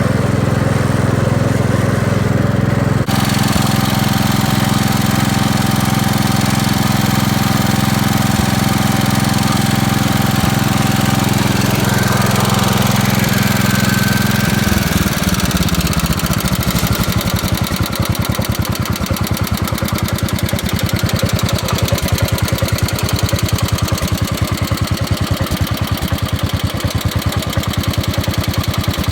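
Kohler K321 single-cylinder engine on a 1969 Gravely 432 running steadily, then slowing about halfway through to a lower speed where the separate firing beats can be heard as a slight putt. The owner thinks the putt means the ignition points need cleaning.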